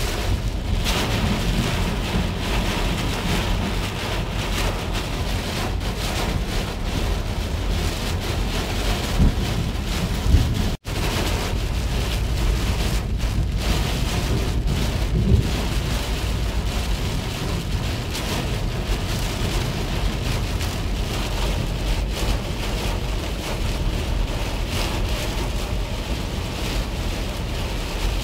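Heavy rain pelting a moving car's windshield and roof, over the steady rumble of road and wind noise heard from inside the cabin. A few brief thumps stand out, and the sound cuts out for an instant about ten seconds in.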